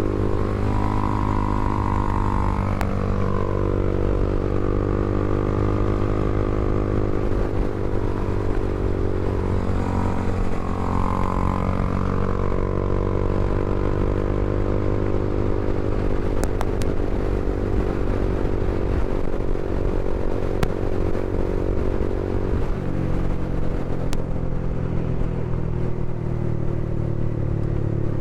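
Honda CBR300R's single-cylinder engine running, its pitch rising and falling several times as the revs change, with a sudden change in pitch about three-quarters of the way through.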